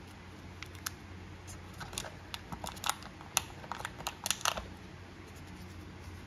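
Unboxing handling noise: a thin plastic bag crinkling and small items clicking and tapping against a phone box's plastic tray, a quick cluster of sharp clicks and crackles through the middle few seconds.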